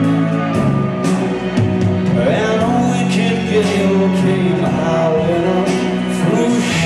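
Live rock band playing an instrumental stretch of the song, with electric guitar and bass guitar over drums.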